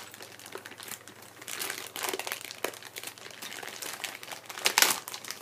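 Clear plastic packaging crinkling and rustling as it is handled and pulled apart, in irregular crackles, with a louder crackle near the end.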